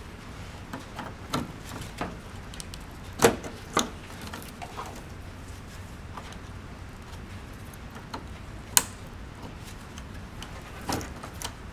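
Scattered clicks and small knocks as gloved hands pull the heating element wire connectors off a Dometic RV refrigerator's control board. Two louder clicks come close together about three seconds in, with another near nine seconds.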